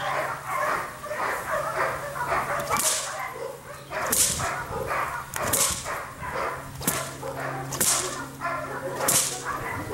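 Six-week-old Dutch shepherd puppy growling and yipping in short bursts as it grips and tugs a burlap sack. A sharp hiss comes roughly every second and a half from about three seconds in.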